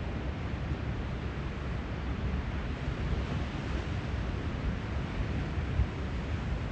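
Steady wash of ocean surf, with wind buffeting the microphone in an uneven low rumble.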